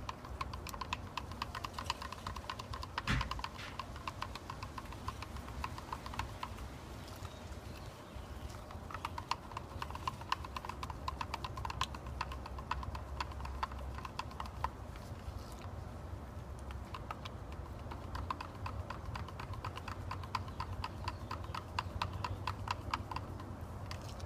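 Wooden craft stick stirring two-part clear casting resin in a plastic cup, clicking and scraping against the cup wall in quick, regular strokes, with a louder knock about three seconds in.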